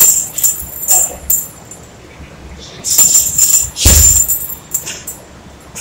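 Punches landing on a chain-hung heavy bag in two quick flurries, one at the start and one a few seconds later, with the bag's metal suspension chain jingling at each hit. The loudest blow, a deep thud, comes about two-thirds of the way through.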